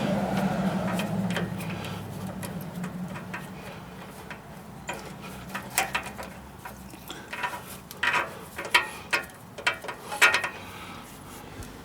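Irregular metallic clicks and knocks of hand tools and sway bar link hardware as a nut is worked and jiggled onto the link's threaded stud, the clicks coming thicker from about halfway in.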